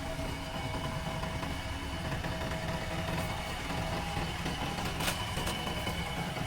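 Heavy machine's diesel engine running steadily at low revs, with a single sharp metallic knock about five seconds in.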